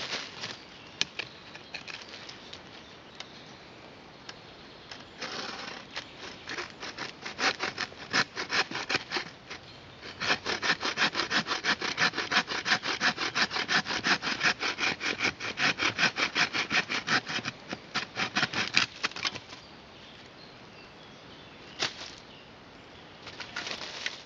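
Hand-held bushcraft frame saw with a metal-tube frame cutting through a branch. It starts with slower strokes, then runs at quick, even back-and-forth strokes, about three or four a second, and stops about two-thirds of the way in. A single sharp knock follows near the end.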